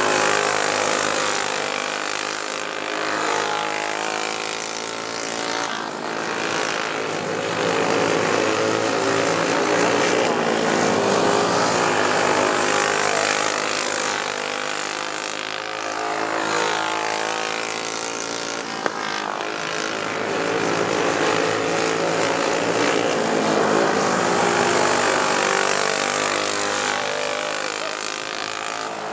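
Briggs & Stratton Animal single-cylinder four-stroke go-kart engines racing, the engine pitch rising and falling over and over as the karts accelerate and lift off for the turns, the sound swelling and fading every few seconds.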